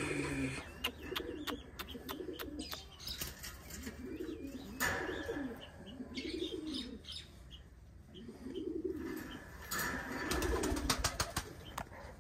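Pigeons cooing over and over in low, rolling phrases, with a few clicks and brief rustling bursts that could be wing flaps.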